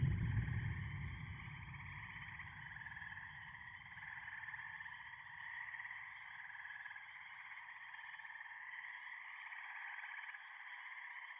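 Electronically processed recording of a toad mating chorus: a steady band of trilling that rises and falls slightly in strength. Under it, a deep low rumble fades out over the first two seconds.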